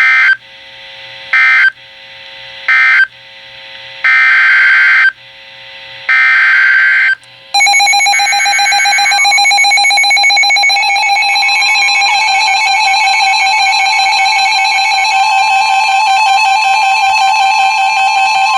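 Emergency Alert System signal tones. Three short screeching digital data bursts come about a second apart, marking the end of the previous message, then two longer data bursts carry the next alert's header. A long, buzzy attention tone rich in overtones follows, and a second steady tone joins it a few seconds later.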